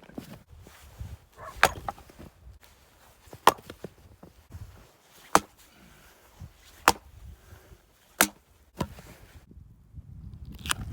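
Wood being chopped: a series of sharp, single blows on wood, about one every second and a half.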